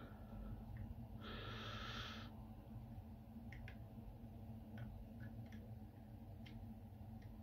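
Plastic Ford flip-key remote fob being handled during a battery change: a brief scrape lasting about a second, starting about a second in, then scattered faint clicks of the plastic shell, over a steady low hum.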